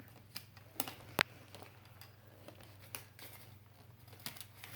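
Light handling of plastic parts and packaging: faint rustling with a few sharp plastic clicks, the loudest about a second in.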